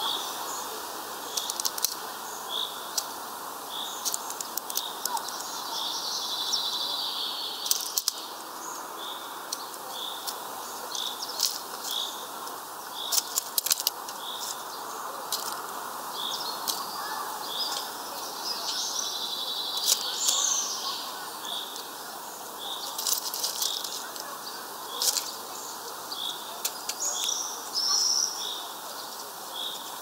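Small songbirds at a feeder: one bird gives a steady series of short high chirps, about three every two seconds, with bursts of twittering a few times. Scattered sharp clicks and taps, the loudest sounds, come as a white wagtail pecks among sunflower husks on the feeder tray.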